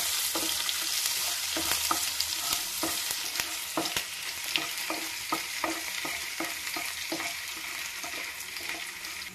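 Hot oil sizzling in a nonstick kadhai as cumin seeds, chopped green chilli and ginger fry, while a wooden spatula stirs and scrapes through them. There is a steady hiss with frequent short clicks and knocks.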